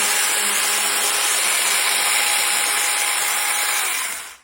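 Small electric chainsaw running flat out while chopping a salad: a loud, steady high whine that stops abruptly near the end.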